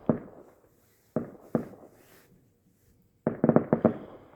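Distant fireworks going off as muffled bangs: one at the start, two more a little after a second in, then a quick volley of about seven bangs near the end.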